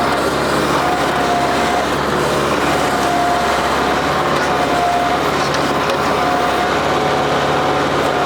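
New Holland WorkMaster 55 diesel tractor running steadily under load while its grapple bucket digs at a tree's roots, with a thin whine that cuts in and out several times.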